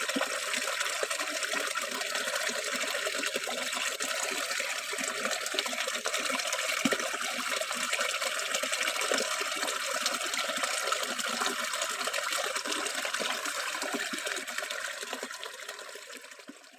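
Steady rush of flowing river water, fading out near the end.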